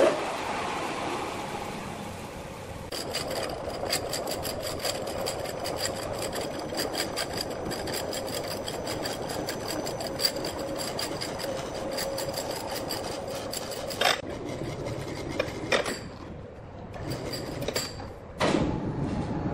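Large horizontal log band saw running and cutting through a big log: a steady rasping buzz with a fast, even ticking over it. A few sharp knocks, one right at the start, and a brief drop in level shortly before the noise picks up again near the end.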